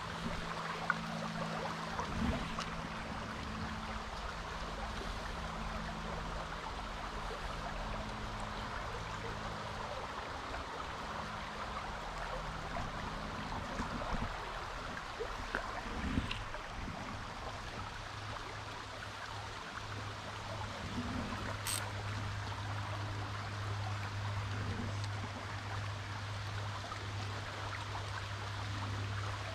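Shallow mountain-stream riffle running steadily over rocks, with a steady low hum underneath.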